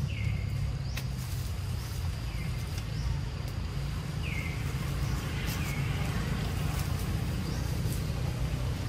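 Forest ambience: a bird repeats a short downward-sliding call every second or two over a steady low rumble and a faint steady high tone.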